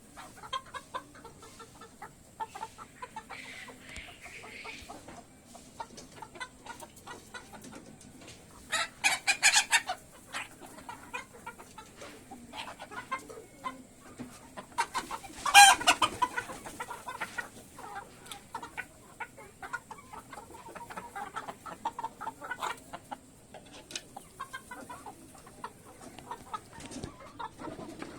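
A flock of farmed chickens clucking throughout. There is a burst of rapid, loud squawks about nine seconds in, and one loud, drawn-out call about halfway through.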